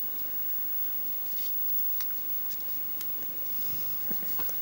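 Faint handling sounds: a few light clicks from fingers working rubber loom bands on a plastic loom, over a steady low hum.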